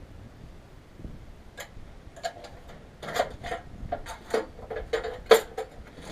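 Metal parts being handled during engine work: irregular light clicks, taps and clinks, sparse at first and coming thicker after about three seconds, with one sharper clink about five seconds in.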